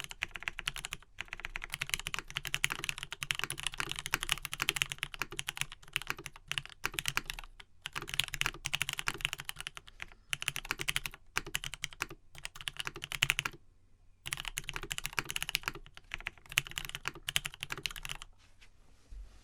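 Fast typing on a Matrix 1.2OG custom mechanical keyboard with lubed Gateron Pink switches, a full aluminium plate and vintage Cherry doubleshot keycaps: continuous runs of keystrokes broken by short pauses, stopping about a second before the end.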